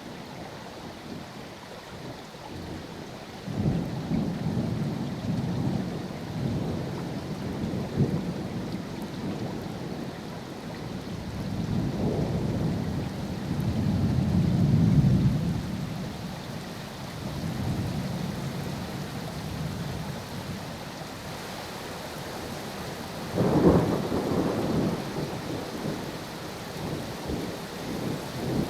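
Steady rain with rolling thunder: low rumbles swell and fade several times, the longest about halfway through and a sharper, louder clap starting about two thirds of the way in.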